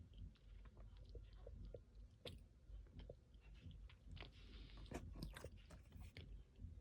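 Chewing and biting a mouthful of thick cornstarch: a run of soft, irregular clicks and crunches, with a short grainy squeak-crunch about four and a half seconds in.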